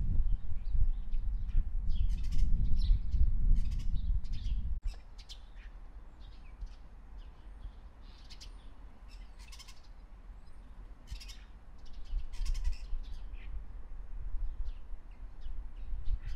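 Birds chirping and calling in short, repeated bursts. Under them a low rumbling noise is loudest for the first five seconds, stops abruptly, and returns more faintly about twelve seconds in.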